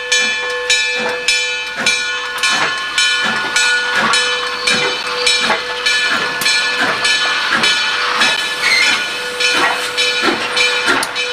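Steam locomotive No. 1293, a 4-6-2 Pacific, working slowly with about one and a half to two exhaust chuffs a second. Under the chuffs runs a steady whine with a hiss of steam.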